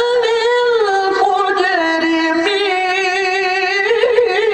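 A male Quran reciter chanting in the melodic tilawah style, holding one long, high, unbroken melismatic phrase whose pitch turns and wavers in ornamented steps.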